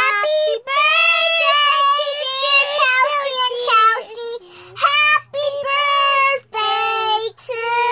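A young girl singing in a high voice, holding long notes in short phrases, with two brief breaks between phrases.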